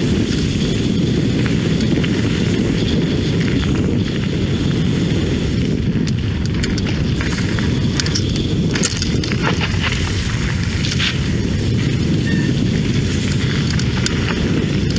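Mountain bike descending fast on a gravel and rocky trail, heard from a helmet-mounted camera: steady low wind noise on the microphone with tyres crunching over the trail surface. A run of sharp clicks and rattles from the bike going over stones comes in the middle.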